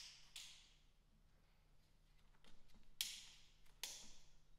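Near silence: room tone with a few faint clicks, two sharper ones about three and four seconds in.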